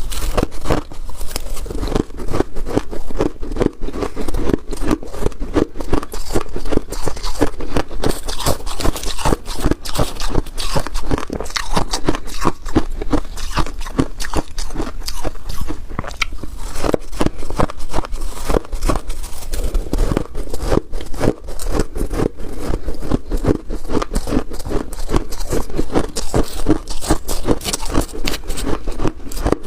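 Freezer frost being crunched and chewed, a dense continuous run of crisp crackles.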